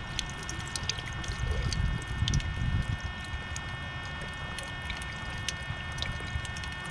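Water running from a drinking fountain, with small splashes and a louder low rush about two seconds in. A faint steady high whine sits underneath.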